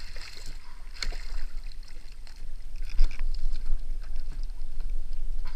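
A cobia, still green, splashing and thrashing against the side of a kayak as it is gaffed and hauled aboard. There are sharp knocks about one second and three seconds in, the second the loudest, over a steady rumble of wind on the microphone.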